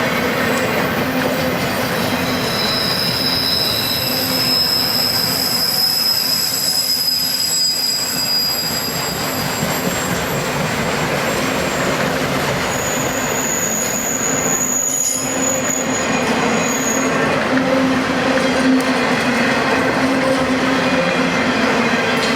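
CSX freight train cars rolling past with a steady rumble, their wheels giving off high-pitched squeals that come and go as they take the crossover between tracks.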